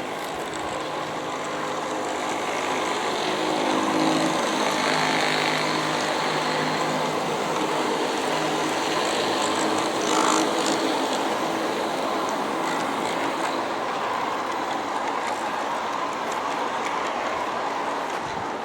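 G-scale model coal train of metal-wheeled hopper cars rolling on track behind four Aristo-Craft diesel locomotives: a steady rolling clatter with a low hum from the locomotives, getting louder about four seconds in as the train passes close, with a brief click near the middle.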